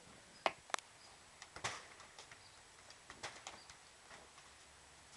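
A few sharp knocks and taps against a quiet background: two close together about half a second in, a stronger one a little after, and a few lighter taps around three seconds in.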